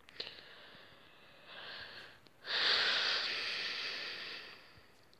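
A person breathing out close to the microphone: a faint breath about a second and a half in, then a longer, louder exhale of about two seconds.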